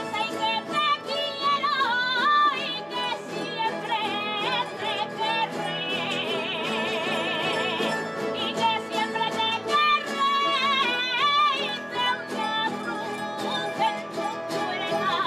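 Aragonese jota sung with strong vibrato and long ornamented held notes, over instrumental accompaniment.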